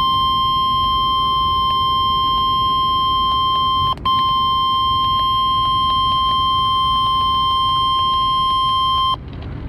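NOAA Weather Radio warning alarm tone: a single steady 1050 Hz beep held for about nine seconds, with a brief dropout about four seconds in. It signals an emergency alert, here a severe thunderstorm watch. A low rumble runs underneath.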